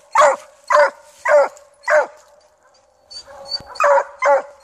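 English coonhound barking treed: four short barks, a little over half a second apart, a pause of nearly two seconds, then a quicker pair of barks near the end. It is the tree bark of a hound that has run a raccoon up a tree.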